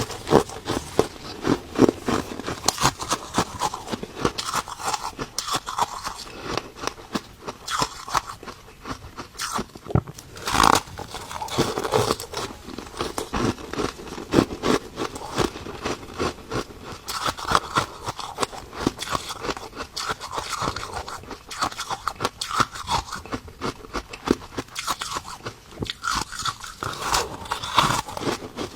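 Ice being bitten and chewed close to the microphone: a dense, continuous run of crisp crunches and crackles, with an especially loud crunch about ten seconds in.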